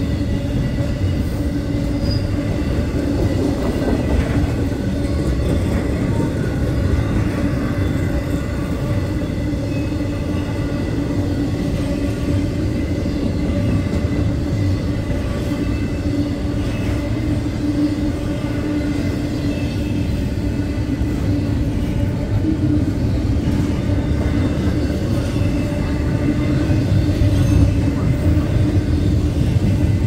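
CSX intermodal freight train's container cars rolling past: a steady rumble of steel wheels on the rails.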